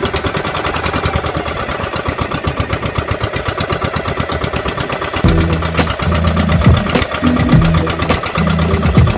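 A pump boat's engine running steadily with a fast, even putter. About five seconds in it gets louder and deeper.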